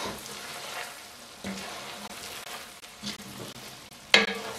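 A wooden spatula stirs and scrapes through hot, dry minced chicken keema in a white enamelled cast-iron pot, and the mince sizzles. About four seconds in there is one sharp knock with a short ring after it.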